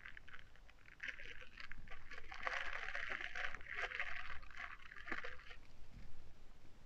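Thin clear plastic bags crinkling and rustling as hands handle and open packets of small metal jewellery findings. The crinkling starts about a second in and dies away near the end.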